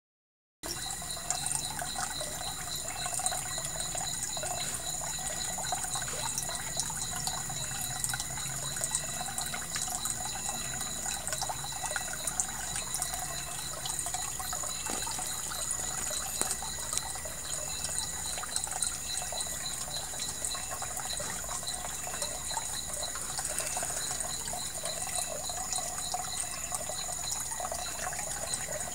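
Water trickling and splashing steadily into a fish pond, with a high, evenly pulsing tone of about three beats a second.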